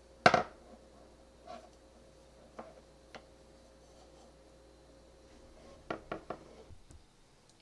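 Large wooden knitting needles tapping and clicking together as stitches are worked in chunky yarn: a sharp loud knock just after the start, a few scattered lighter taps, and a quick run of clicks about six seconds in.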